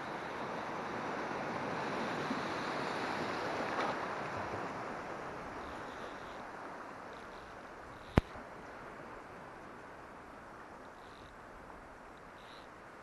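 Steady wind and water noise, loudest about four seconds in and then slowly fading, with one sharp click about eight seconds in.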